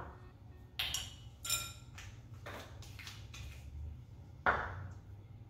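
Spice shaker and measuring spoon clinking against a glass mixing bowl: about five separate taps and knocks, one with a short ring, as seasoning is shaken out and measured.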